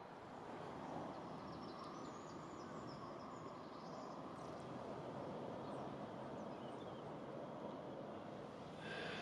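Faint, steady outdoor ambience, with a few faint, high bird chirps in the first few seconds.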